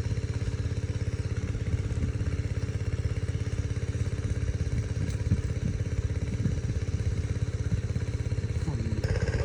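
A small engine running steadily at idle, with a fast, even pulse and a low hum.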